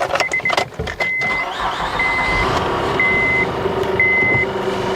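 2008 Honda Odyssey engine cranking and catching, then idling steadily, while a dashboard warning chime beeps about once a second. No hiss comes from the newly replaced power steering pump.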